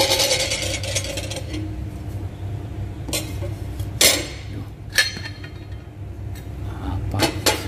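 Metal parts of an OS Giken twin-plate clutch clinking and clanking as they are handled and set down. A ringing clank at the start is followed by several sharper knocks about a second apart and a quick cluster near the end.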